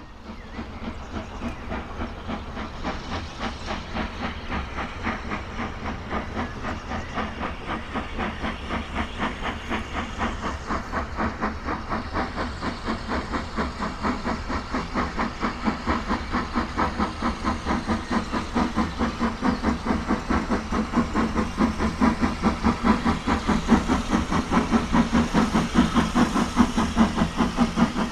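Steam locomotive chuffing in a steady, even rhythm with a hiss of steam. The beats quicken and grow louder as it goes.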